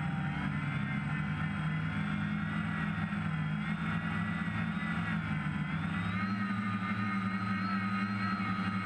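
DJI F550 hexacopter's six motors and propellers whirring steadily in flight, heard from the craft itself. The pitch steps up about six seconds in as the motors speed up.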